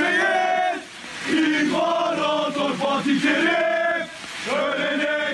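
Crowd of football supporters chanting in unison, many men's voices together in loud phrases with two short breaks, about a second in and about four seconds in.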